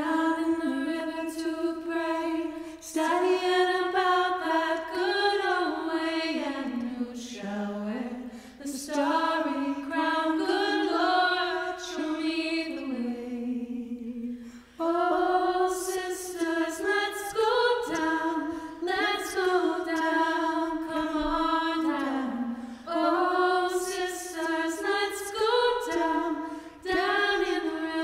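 Three women singing a cappella together, unaccompanied, in long sung phrases with brief pauses for breath.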